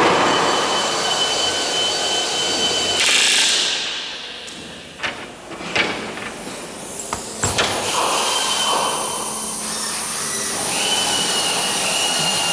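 A power tool running in a large workshop, with a steady high whine at the start that stops about three seconds in and comes back near the end. A few sharp knocks and clicks fall in the middle.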